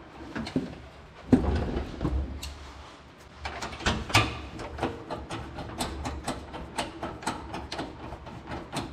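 Hand tools being handled and worked: a knock and rustle a little over a second in, then a quick, uneven run of sharp metallic clicks from about three and a half seconds in.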